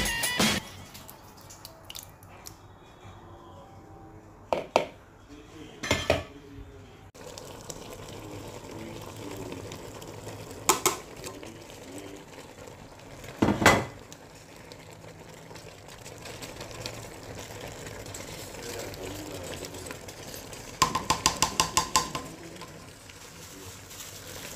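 A spatula knocking and scraping against a metal pan while stirring a sauce: a few separate knocks, then a quick run of about eight taps near the end.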